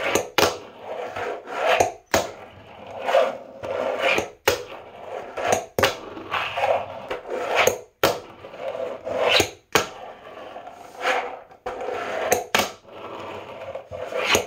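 Wooden fingerboard with Dynamics trucks and hard 65D urethane wheels rolling back and forth on a tabletop, a swelling and fading rasp. It is broken about once a second by sharp clacks of the board striking the table.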